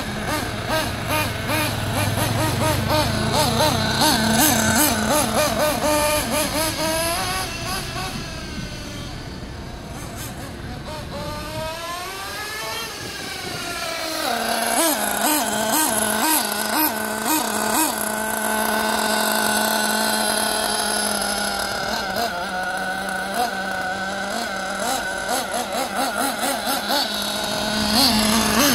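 1/8-scale Team Losi 8IGHT nitro buggy's small glow engine revving up and down as it drives, the pitch rising and falling with the throttle. It fades in the middle as the buggy goes farther off, then grows louder again as it comes back.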